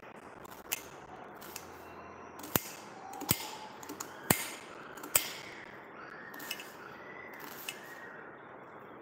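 A kitchen knife slicing a red onion on a stone countertop, the blade knocking sharply on the counter with each cut: a handful of irregular knocks, the loudest in the middle.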